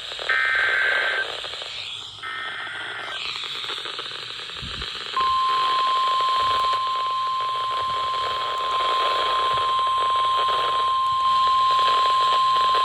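NOAA Weather Radio alert activation. The last two of the three SAME header data bursts come as short buzzy screeches, then after a brief gap the single steady 1050 Hz warning alarm tone starts about five seconds in and holds, over radio hiss. The sequence signals that a warning broadcast, here a special marine warning, is about to be read.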